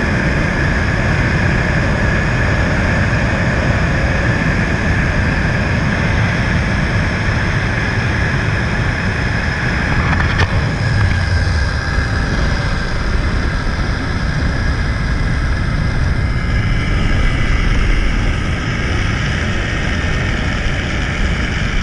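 Zipline trolley running at speed along the steel cable: a steady high whine from the pulley wheels over heavy wind rushing past the microphone.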